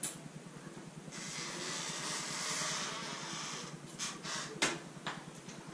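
A steady hiss of rushing air lasting about two and a half seconds, followed by a few short breathy puffs, during a strained barbell curl in a pneumatic exoskeleton.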